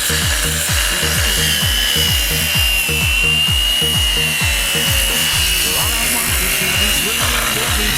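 A steady, hissing, rasping power-tool noise with a faint wavering high whine, over background pop music with a steady beat.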